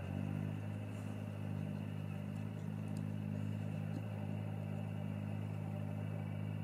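A steady, low, engine-like hum that holds one pitch throughout, with a few faint ticks.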